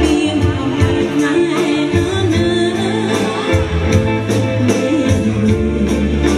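Live amplified Khmer dance band playing a steady beat of drums and bass, with a woman singing the melody over it.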